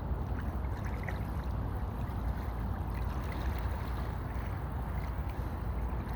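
Steady rush of the Chagrin River's current flowing past, an even watery noise.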